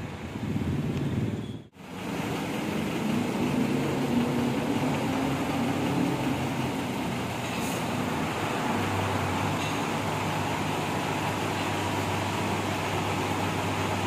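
Bus engines running in a terminal yard. The sound breaks off abruptly once, near two seconds in, then picks up again; from about nine seconds in a steady low engine drone holds.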